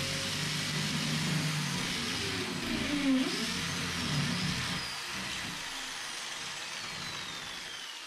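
Corded electric drill turning slowly, its tile drill bit grinding into a ceramic wall tile, a steady motor noise whose whine falls in pitch and fades in the second half.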